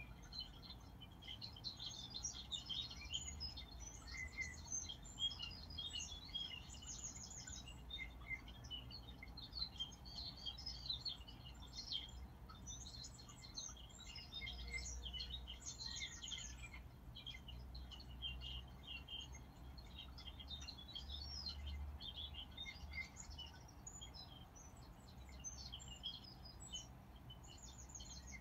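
Several birds chirping and trilling continuously in a dense chorus of short, high calls, over a faint low hum.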